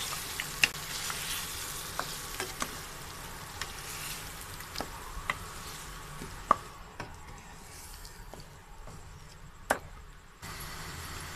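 Beef chunks and tomato paste sizzling in oil in a frying pan as a spatula stirs them, with scattered sharp clicks and pops. The sizzle thins out about two-thirds of the way through, then comes back steadier near the end.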